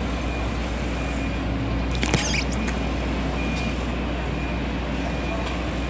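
Steady background din of city traffic and construction work with a constant low hum, and a brief, sharp, high-pitched clatter about two seconds in.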